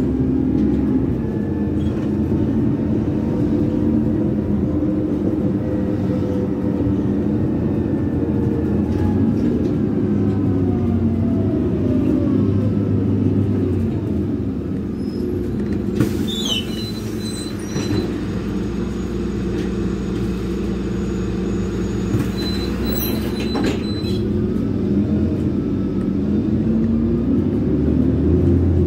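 Karsan Bredamenarinibus Avancity+L CNG city bus under way, heard from inside the cabin: a steady engine and road rumble, with a drivetrain whine that falls in pitch as it slows. Brief high-pitched squeals come twice around the middle.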